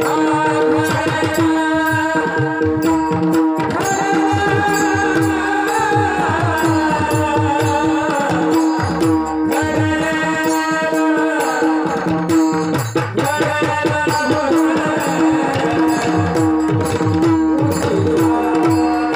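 Devotional kirtan singing: a man's voice sings a melodic 'chal' over a steady drone, with fast hand-drum strokes keeping the beat throughout.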